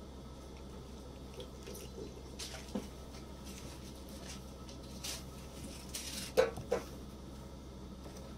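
Faint steady low hum with a few scattered small clicks, and two sharper knocks close together about six and a half seconds in: handling of the apparatus.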